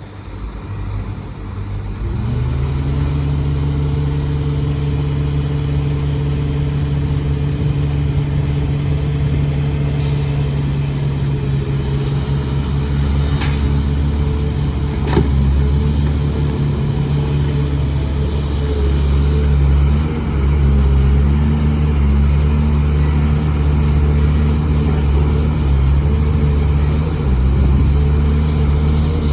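Heavy diesel engine of an excavator running steadily. It revs up about two seconds in and then holds a constant low drone. Two short sharp clanks come around the middle.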